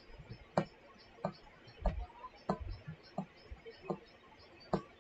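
A stylus tapping and writing on a tablet screen, making sharp clicks about every two-thirds of a second, with a couple of duller knocks around two seconds in.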